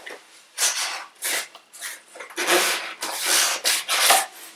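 A small cardboard shipping box being opened by hand: irregular bursts of scraping and tearing as the sealing tape is worked loose and the flaps are pulled apart, with the longest stretch near the middle.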